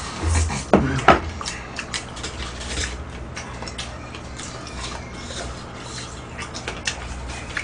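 Close-up eating noises: chewing and lip-smacking, with scattered small clicks of chopsticks and dishes.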